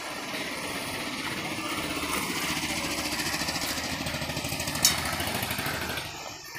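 Power tool running with a rapid hammering rattle for about six seconds, with one sharp click near the end, then stopping.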